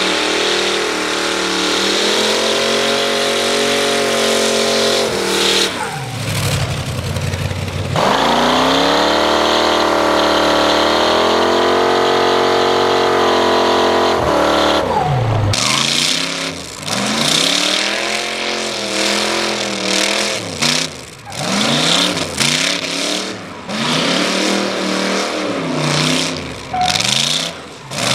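Chevy 400 small-block V8 held at high revs during a burnout, rear tyres spinning with a steady hiss; the revs sag about six seconds in and climb back. From about halfway on, the engine revs up and falls back again and again, every second or two, as the truck slides round in the smoke.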